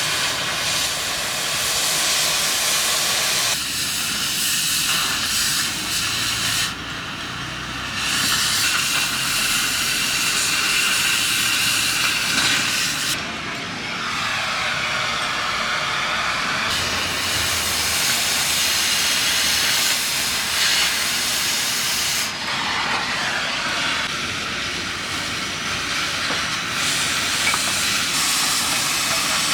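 Oxy-fuel cutting torch hissing steadily as it cuts through steel. The hiss drops off briefly three times.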